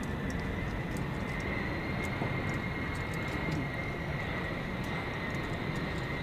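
Steady outdoor background rumble and hiss with a faint steady high whine, with no distinct events.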